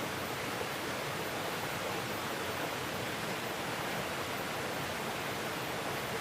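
Steady rushing of flowing stream water, an even hiss without breaks.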